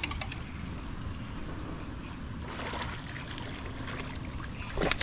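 Steady wind rumble on the microphone over faint water sloshing and splashing while a hooked bass is reeled in.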